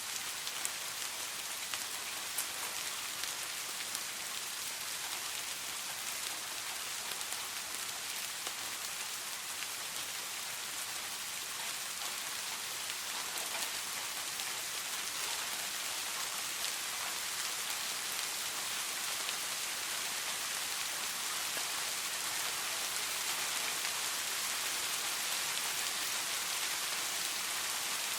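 Steady rain falling, a dense even hiss of drops with a few individual drop ticks standing out.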